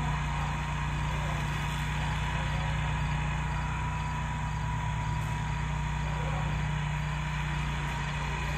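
Steady engine drone at a constant pitch and level, with a faint thin whine above it.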